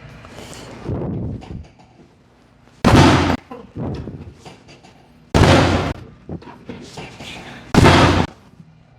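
Three loud thuds from a chiropractic adjustment on a treatment table, about two and a half seconds apart, with a softer knock about a second in.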